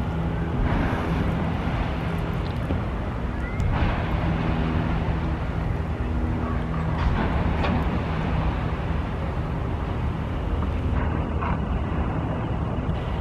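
Diesel engine of heavy demolition machinery running steadily, with several short knocks scattered over it, the sharpest about four seconds in.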